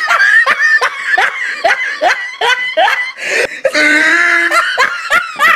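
Human laughter: a run of short, falling 'ha' sounds, about three a second, then a longer held vocal note and a few more laughs near the end.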